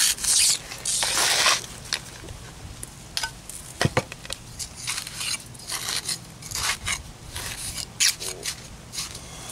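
A steel pointing trowel scraping across stiff sand-and-cement mix on a concrete sidewalk for the first second and a half, then scattered light scrapes and ticks as the mix is pushed and packed into the slot.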